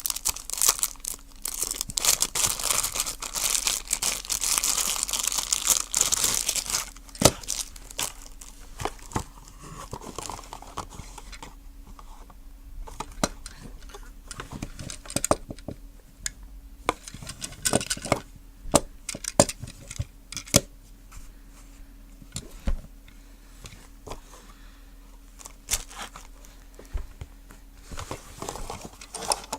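Toy packaging being torn open and crinkled, loud and continuous for the first several seconds, then sparser rustling with many short sharp clicks.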